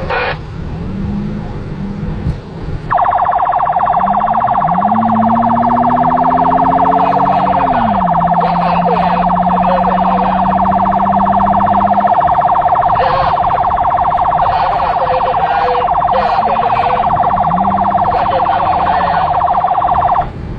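Rescue vehicle's siren switched on about three seconds in, a loud steady pulsing tone, then cut off abruptly near the end.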